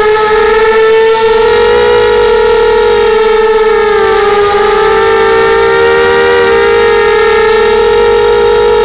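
Brushless motors and propellers of a Pitbull 250 FPV racing quadcopter whining loudly and steadily in flight, the pitch wavering slightly with throttle.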